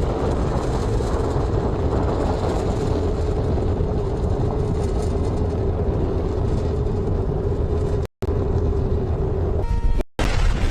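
Rocket engines rumbling during ascent after liftoff, a steady low roar with a single held tone over it. The sound cuts out briefly twice near the end.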